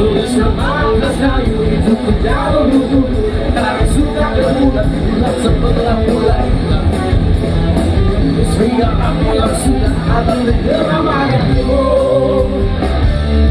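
Live rock band playing loud through a PA system: electric guitars, bass and drums, with a steady cymbal beat and the lead singer's vocals.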